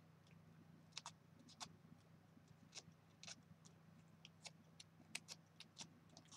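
Near silence with faint scattered ticks and light scrapes of small paper pieces being drawn over a bone folder to curl them, over a low steady hum.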